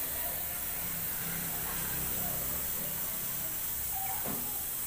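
Airbrush hissing steadily as it sprays paint.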